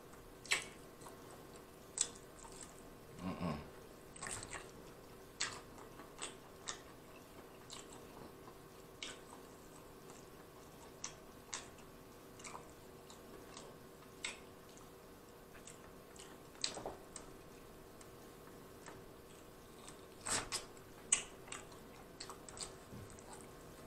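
Close-miked eating sounds of barbecue-sauced ribs being chewed: scattered wet smacks and sticky clicks every second or so, with a short low hum about three seconds in and a quick cluster of smacks near the end.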